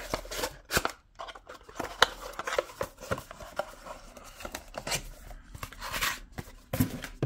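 A small cardboard product box being handled and opened: irregular scrapes, rustles and sharp clicks of cardboard packaging.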